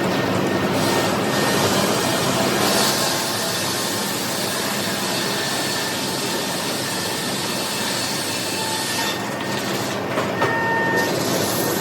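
Sawmill machinery running steadily, with the chain conveyor clattering and rumbling as it carries heavy boards, and a few sharp knocks about ten seconds in.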